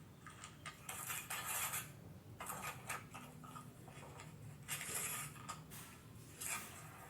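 Irregular scraping and clinking of small hard objects, in several short spells, over a steady low hum.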